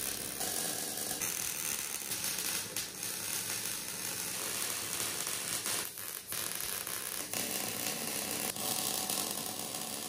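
Electric arc welding on a steel tube mini-bike frame: a steady crackling hiss of the arc, with a brief break about six seconds in.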